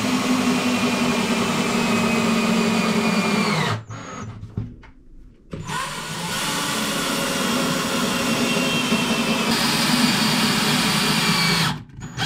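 Cordless drill running as it drills into a plywood panel: one long run, a pause of about two seconds, then a second long run that stops just before the end. The motor whine sags slightly in pitch as the bit bites.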